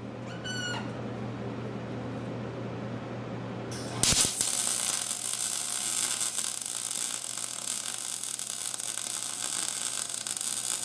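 Gas-shielded MIG (wire-feed) welder: a steady electrical hum, then about four seconds in the arc strikes and crackles continuously as a weld is run on bare steel plate.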